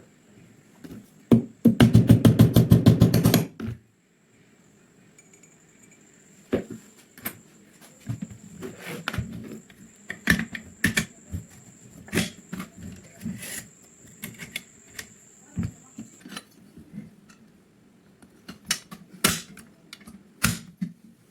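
Hand work on metal gun parts: a fast, loud run of clicks about two seconds in, then scattered clicks and knocks.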